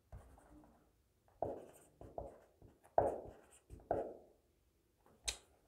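Marker pen writing on a whiteboard: a handful of short strokes as a word is written, then a short sharp click near the end.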